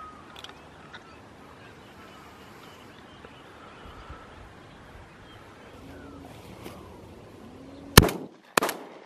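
Two shotgun shots, about half a second apart, fired skyward at ducks, near the end, over a faint outdoor background.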